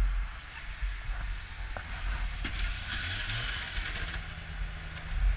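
Car engine running low and steady, heard through an onboard camera. A band of hiss rises over it from about two and a half to nearly four seconds in.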